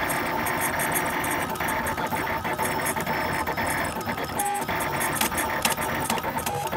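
LulzBot 3D printer printing an ABS part: the print head's stepper motors buzz and whirr in quick, shifting runs as the nozzle lays down honeycomb infill. A brief steady whine about halfway through.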